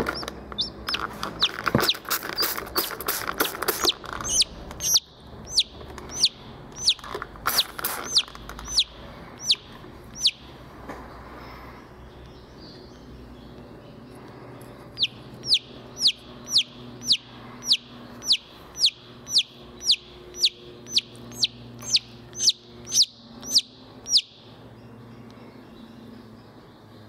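A hatching chicken chick peeping from inside its pipped egg: short, high, evenly spaced peeps about two a second, in two long runs with a pause of about four seconds between them. A rapid patter of clicks in the first few seconds.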